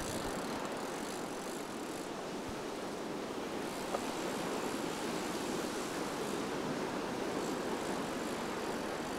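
Ocean surf washing onto the beach, a steady rush with wind noise on the microphone, and a single sharp click about four seconds in.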